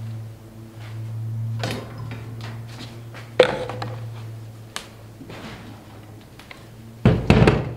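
Gas can spout knocking and clicking against a two-stroke trimmer's plastic fuel tank filler neck as it is set in place, with one sharp knock about three and a half seconds in. A louder burst near the end as the fuel begins to pour.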